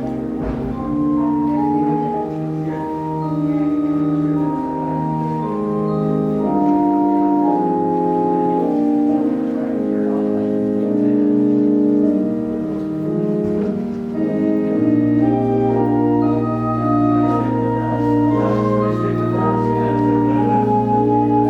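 Organ playing slow, sustained chords, with a low bass note held from about fifteen seconds in.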